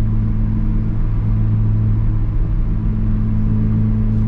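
Volkswagen Golf GTI Mk7's turbocharged 2.0-litre four-cylinder running at a steady engine speed through a Borla S-type catback with no muffler and a Unitronic downpipe: a loud, steady exhaust drone.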